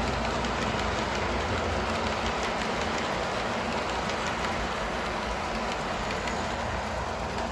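Model passenger train rolling along its track, a steady rushing noise of wheels on rail with faint light ticks through it.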